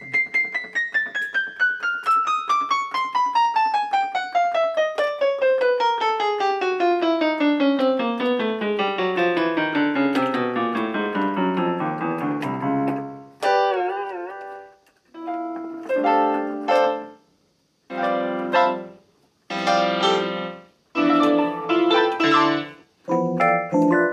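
Galaxy GMC-60 61-key electronic keyboard played on a piano voice: a long run of quick notes falling steadily from the top of the keyboard to the bottom over about twelve seconds, then a note wavering up and down in pitch, then a string of short chords with brief pauses between them.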